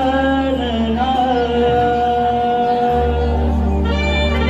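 Male folk singer holding long, slowly gliding notes of a gan, a Konkan folk invocation to Ganesh, over a steady low drone.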